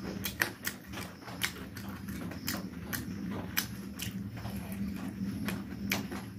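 Close-miked chewing of spiced chicken leg pieces: irregular wet mouth smacks and clicks, about two a second, over a steady low hum.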